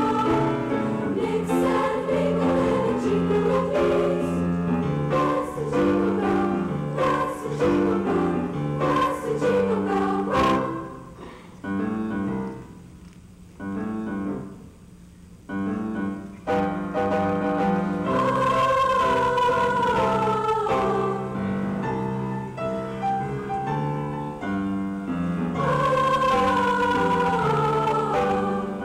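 School choir singing with piano accompaniment. About ten seconds in the music drops to a soft, sparse passage for several seconds, then the full choir comes back in with long held notes.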